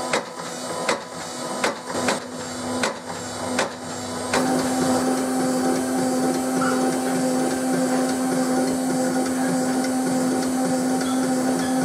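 Lock cycle-testing machine: a motor-driven arm turns a mortise lock's thumbturn over and over, its mechanism clicking sharply about every three-quarters of a second. About four seconds in this gives way to the steady, pitched hum of a small geared electric motor driving a tipping mechanism back and forth.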